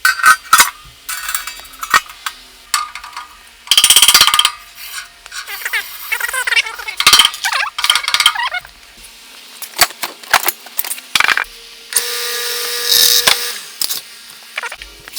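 Metal tools and parts knocking, clinking and scraping, with several short ringing strikes. A steady mechanical hiss with a held tone runs for about two seconds near the end.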